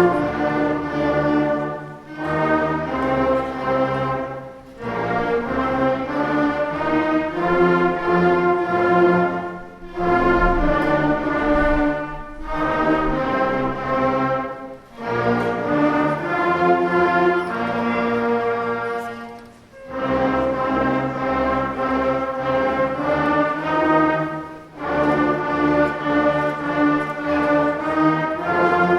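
Elementary school beginning wind band playing a simple five-note melody together, in phrases of a few seconds separated by brief pauses for breath.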